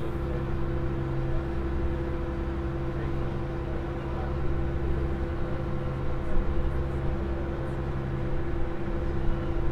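Open car ferry's engines running steadily under way: a constant low drone with a steady hum.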